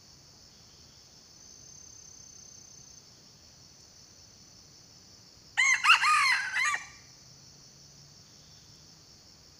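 Red junglefowl rooster crowing once, a short call of a little over a second, about halfway through, over a steady high drone of insects.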